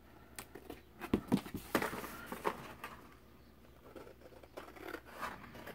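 Scissors snipping the overhanging edges off a sheet of glued book-page paper, with the paper rustling: short, irregular snips in two clusters.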